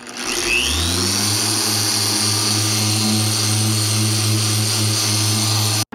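Electric rotary polisher with a foam pad spinning up over about a second, then running steadily with a high whine while buffing plastic polish into a scratched turntable dust cover to remove scratches. It cuts off suddenly near the end.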